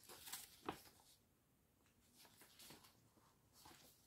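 Faint, intermittent rustling of a large printed paper chart sheet being handled and turned over, a few soft crinkles in an otherwise quiet room.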